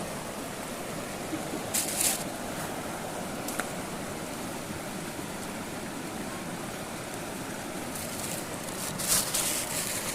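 River water rushing steadily over stones, with two brief louder hissing noises, one about two seconds in and a longer one near the end.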